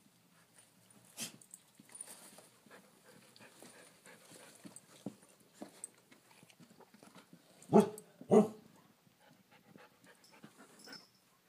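A dog sniffing and panting quietly, with faint scuffling, then two short loud dog sounds about half a second apart a little under eight seconds in.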